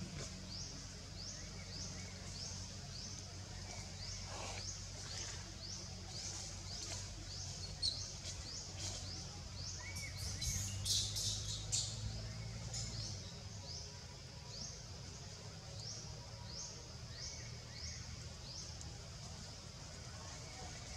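Ambient forest sound: a bird gives short, high, rising chirps over and over, about two a second. A louder flurry of sharper high calls comes about halfway through, over a steady low background rumble.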